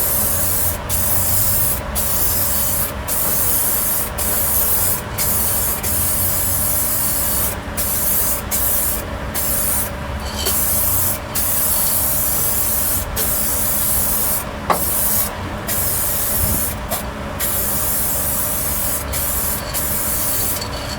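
Spray paint hissing from an aerosol can's nozzle in long sprays, broken by many brief gaps where the nozzle is let off for a moment.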